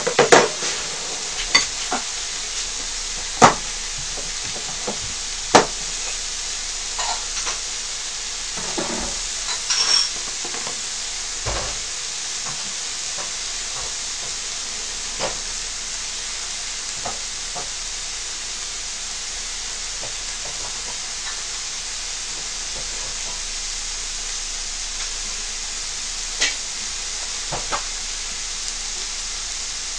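Thin slices of marbled beef ribeye sizzling on an electric griddle, a steady frying hiss. Metal tongs click and tap against the griddle several times in the first ten seconds, then only now and then.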